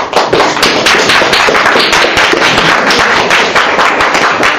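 An audience applauding: many people clapping together in a dense, steady patter.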